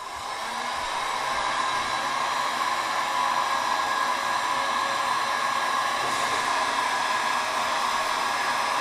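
Electric heat gun switched on and running steadily on setting 2, a blowing hum with a steady tone in it that comes up to full speed over about the first second. It is heating acrylic tubing to soften it for bending.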